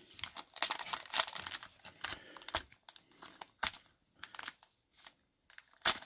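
Foil trading-card pack wrapper crinkling and being torn open in gloved hands. It crackles densely for the first three seconds or so, then gives a few scattered crinkles.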